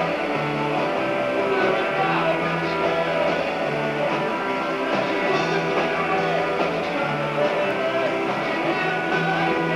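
Live rock band playing a song with guitars, its bass line repeating steadily throughout.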